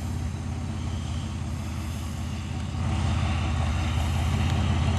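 A 1950 Dodge pickup's engine idling steadily, heard from behind the truck, getting slightly louder about three seconds in.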